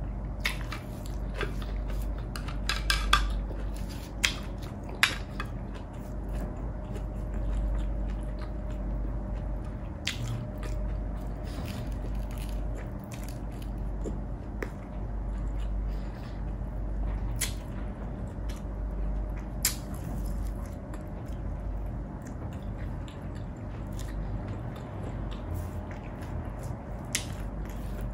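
Close-miked mukbang eating: chewing and biting food, with sharp clicks now and then, several of them together about three seconds in. A low steady rumble runs underneath.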